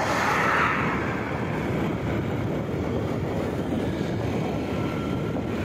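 Motorcycle riding at a steady cruising speed, its engine and road noise mixed with a steady wind rumble on the microphone.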